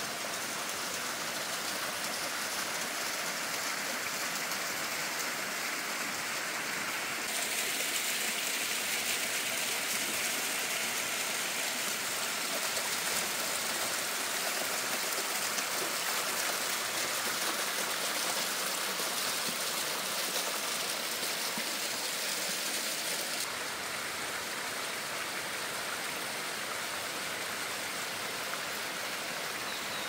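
Small waterfall with a modest flow, thin streams of water running down a steep rock face and splashing onto stones: a steady hiss of falling water. It gets louder about seven seconds in and drops back abruptly about six and a half seconds before the end.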